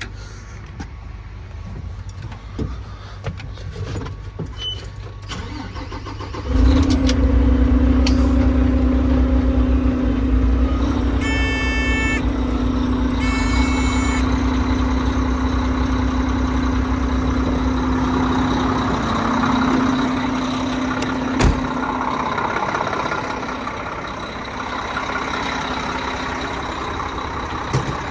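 Concrete pump truck's Mack MP8 diesel idling, then about six seconds in it comes up to speed as the Putzmeister pump kit's hydraulics are engaged, with a loud steady hum. Two electronic beeps sound a couple of seconds apart, and a sharp clunk comes near the end, after which the hum drops away.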